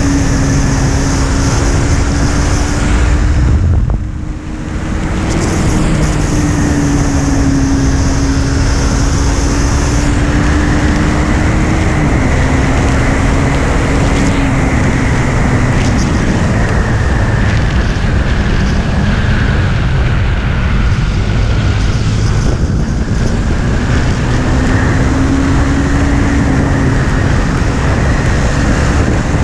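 KTM Duke 390's single-cylinder engine running at speed, its note steady but drifting and stepping up and down as the throttle and gears change, under heavy wind rush on the onboard microphone. About four seconds in the sound briefly dips as the throttle is closed, then picks up again.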